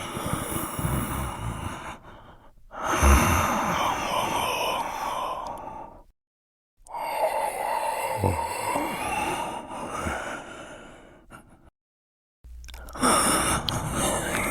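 Creepy human breathing sound effect: slow, drawn-out breaths, one after another, four in all, each cut off by a short dead silence.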